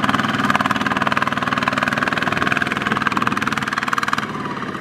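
Single-cylinder diesel engine of a Kubota ZT155 walking tractor running steadily under load, a rapid even chugging, as its wheels drag a loaded trailer through mud.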